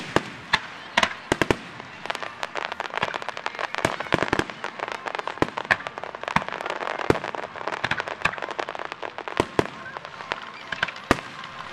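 Aerial fireworks shells bursting in a dense, rapid series of sharp bangs and crackling reports, packed most tightly in the middle.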